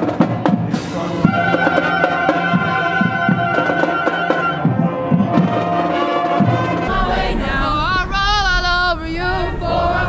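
Marching band playing on parade, flutes and clarinets carrying held notes over beating drums. About seven seconds in, the band gives way to a low rumble and wavering voices.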